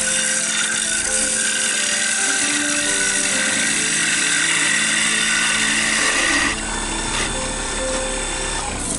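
Bowl gouge hollowing the inside of a spinning wooden bowl on a King KWL-813VS variable-speed wood lathe: a steady rough hissing cut that eases off about six and a half seconds in. Soft background music with held notes plays underneath.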